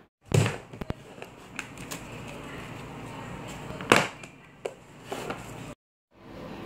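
Clicks and knocks of a clear plastic storage box being handled, the loudest a sharp click about four seconds in as a hand comes down on its lid, over a steady background hiss.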